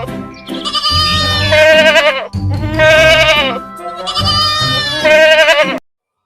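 Goat bleating: three long, quavering bleats, one after another.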